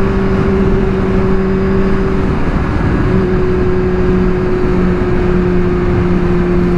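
Kawasaki Z1000 R inline-four engine running at steady highway speed, with wind and road rush. The engine note dips slightly about two and a half seconds in, then holds steady.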